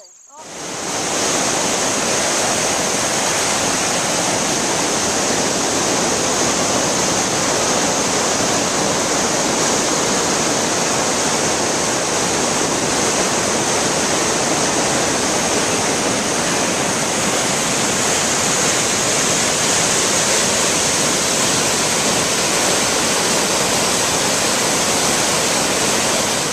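Water pouring out of a dam's concrete outlet tunnel and churning into the channel below: a loud, steady rush that starts abruptly and holds even throughout.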